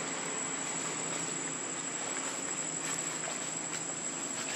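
Forest insects droning steadily on one high pitch over a broad background hiss, with a few faint short ticks in the second half.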